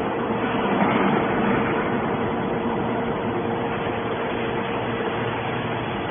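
Steady industrial machinery noise with a constant mid-pitched whine.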